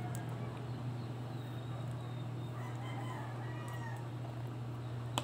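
Steady low hum with a faint, drawn-out bird call, about two to four seconds in. A sharp click near the end.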